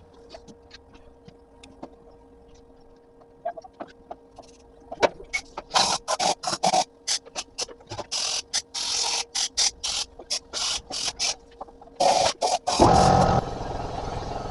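Ratchet wrench clicking in quick, even strokes, about five a second, as a broken exhaust bolt is backed out of an aluminum cylinder head. A few louder strokes follow near the end, and then a steady mechanical noise starts.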